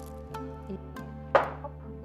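Background music with soft, steady notes. About a second and a half in, one sharp knock: a foil-wrapped cake pan of cheesecake batter tapped down on the counter to knock air bubbles out of the batter.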